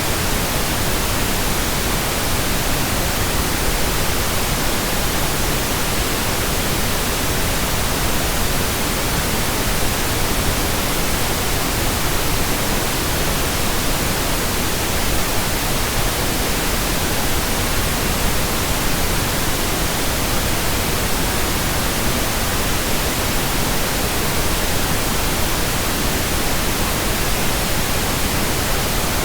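Pink noise: a steady, even hiss spread across all pitches, unchanging throughout.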